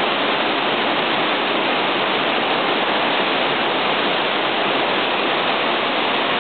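Waterfall pouring down, a loud, steady rushing of water with no let-up.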